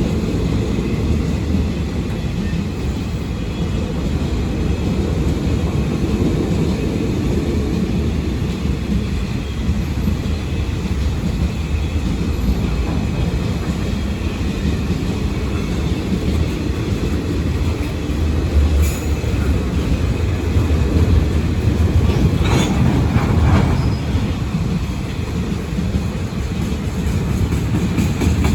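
A train's wagons rolling past with a steady heavy rumble, with a brief wheel squeal about two-thirds of the way through.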